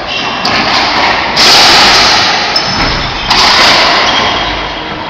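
Racquetball shots in an enclosed court: the ball is struck hard twice, about two seconds apart, each crack echoing around the walls and trailing off slowly, with a lighter knock just before.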